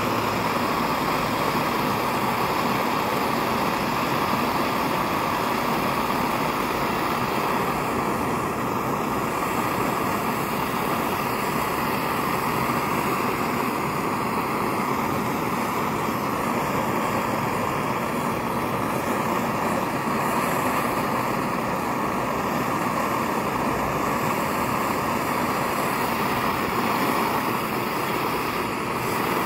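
Kerosene pressure stove burner burning steadily, giving an even, unbroken rushing noise.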